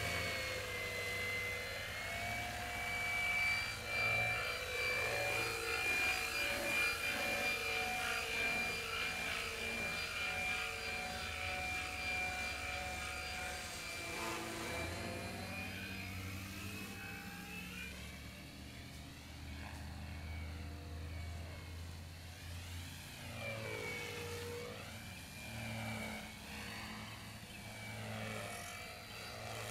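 Electric RC foam airplane in flight: the BM2410-12 brushless outrunner motor and 12x6 propeller give a steady whine. In the second half the pitch swings up and down again and again.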